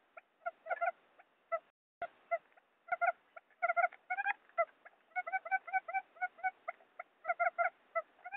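Wild quail lure-call recording: short pitched notes repeated several times a second in uneven clusters, the call used to draw wild quail to a trap. A short break ending in a click comes about two seconds in.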